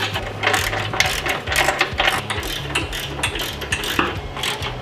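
Rapid, irregular mechanical clicking and clattering of hand tools and bolts as the steel bumper is fastened to the winch plate, over a low steady hum.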